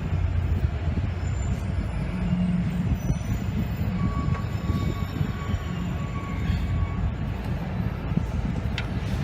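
Steady low rumble of vehicle noise, with a faint thin whine from about four seconds in.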